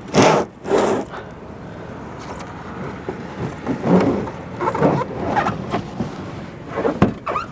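Old Dometic rooftop heat pump unit being scooted across a fiberglass RV roof: two loud scrapes right at the start, then shorter scrapes and bumps, and a sharp knock near the end.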